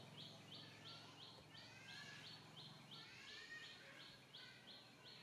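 Faint outdoor ambience: a high chirp repeated evenly about four times a second, with softer rising and falling bird calls around the middle.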